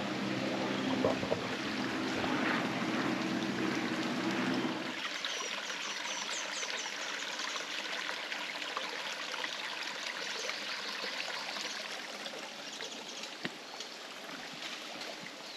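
Stream running and trickling over rocks, an even rushing sound. For the first five seconds a low steady hum sits underneath it, then cuts off abruptly.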